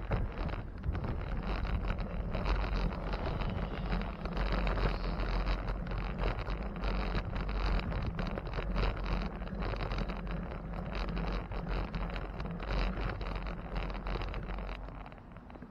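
Wind rushing and buffeting over the microphone of a moving bicycle, with a steady deep rumble; it eases off near the end.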